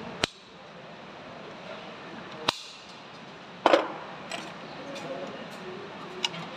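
Sharp metallic clicks and clinks from hand work on a 12 V truck starter motor as its carbon brushes are fitted into the brush holders: three louder clicks, the third the loudest and ringing briefly, then a few lighter ticks.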